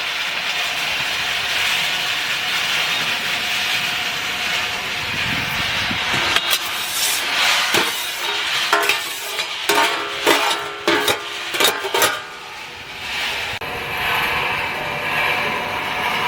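Peanut roasting machine running with a steady mechanical hiss, broken by a run of sharp clatters and knocks for about six seconds in the middle.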